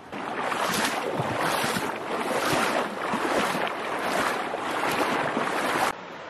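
Shallow river water running and rippling over stones close to the microphone, a steady rushing wash that cuts off abruptly near the end.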